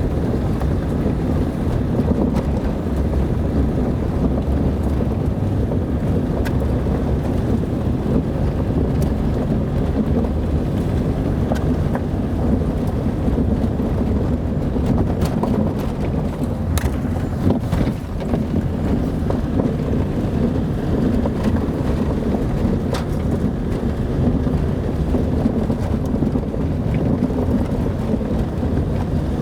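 Car driving on an unpaved dirt road: a steady low rumble of engine and tyres with wind noise, and a few scattered light clicks.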